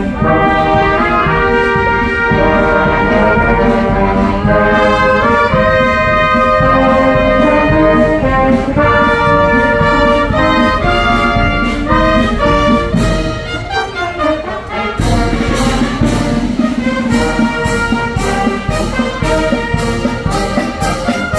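Live brass band of trumpets and trombones playing, with held chords that change every second or so. About fifteen seconds in, a steady percussion beat of about two strokes a second joins the brass.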